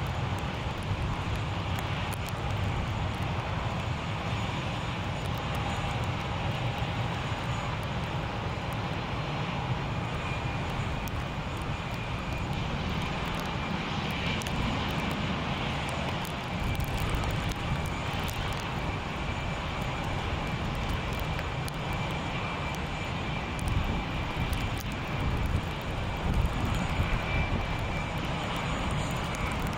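Twin jet engines of a taxiing Airbus A320-family airliner at low taxi power: a steady whine over a low rumble, the rumble growing louder and more uneven in the last few seconds.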